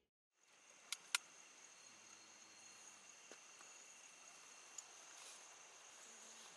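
Faint, steady high-pitched insect chorus, with two sharp clicks about a second in.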